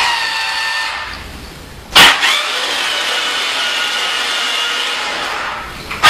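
Toy remote-control forklift's small electric motor and plastic gears whining: a short whir for about a second, then a sharp clack about two seconds in as it starts again and a steady whine for about four seconds.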